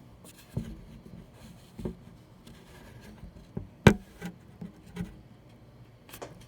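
Irregular knocks and thumps with soft rubbing and scraping between them, about eight in all, the sharpest and loudest about four seconds in.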